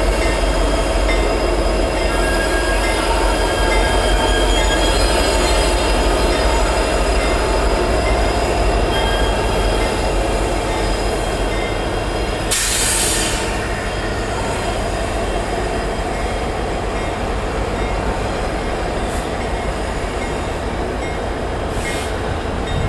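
Diesel locomotives rolling slowly around a curve, engines rumbling under a high steady squeal from the wheels on the curved rail, growing quieter as they move off. A brief hiss comes about twelve and a half seconds in.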